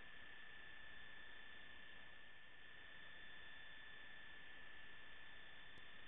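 Steady electronic hiss with a constant high-pitched whine: noise from the recording chain, with no game sounds heard.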